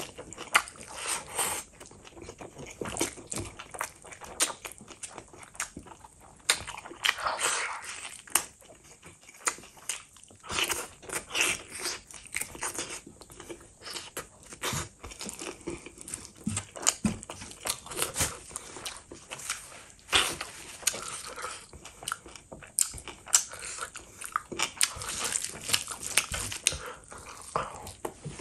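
Close-miked eating: wet, smacking chewing of mouthfuls of rice and mutton, with irregular sticky clicks as a bare hand gathers gravy-soaked rice.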